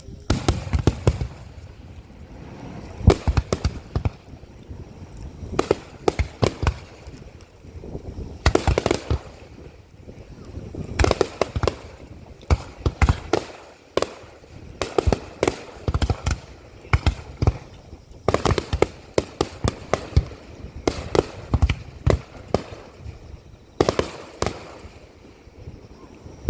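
Aerial fireworks bursting in a finale barrage: tight clusters of sharp bangs and crackles, a fresh volley every second or two.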